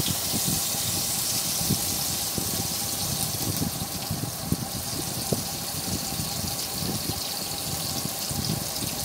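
Sliced onions frying in hot oil in a nonstick pan: a steady hiss of sizzling, with a few soft knocks from a wooden spatula stirring them.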